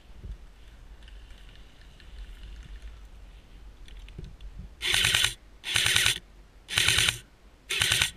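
Airsoft rifle firing four short full-auto bursts of rapid clicking shots, each about half a second long, starting about five seconds in.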